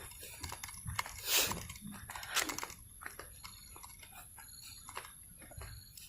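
Two short crunching noises, about a second apart near the start, with scattered light clicks in between.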